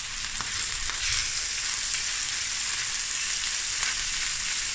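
Cubed chicken breast sizzling steadily in hot oil in a stainless steel pan, with a wooden spoon stirring it and giving a few light clicks against the pan.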